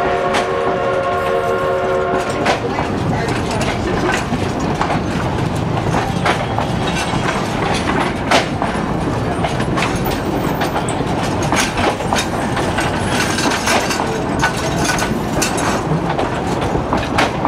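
A narrow-gauge train's whistle holds a chord of several tones and stops about two and a half seconds in. After that comes the steady rumble of the moving train, with its wheels clicking and rattling irregularly over the rail joints.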